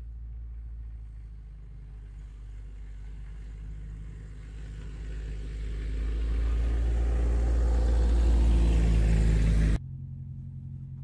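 Car engine and tyres on a dirt track, a low rumble growing louder as the car approaches, then cutting off suddenly near the end to a quieter low hum.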